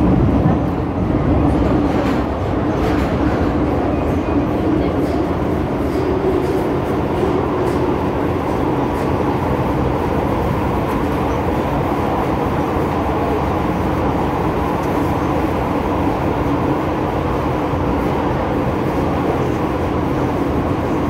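MTR M-Train metro car (Phase 2A stock) running between stations, heard from inside the car: a steady running rumble of wheels on track with a constant low hum.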